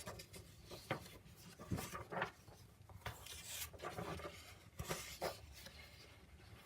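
Sheets of origami paper rustling and sliding against each other as they are handled, in short irregular strokes.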